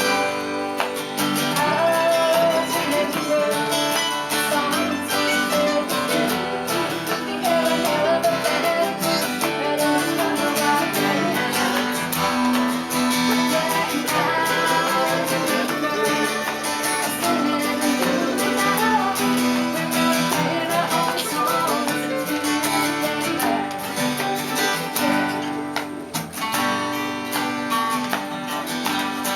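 Acoustic guitar strumming an original country-folk song, with a voice singing over it at times.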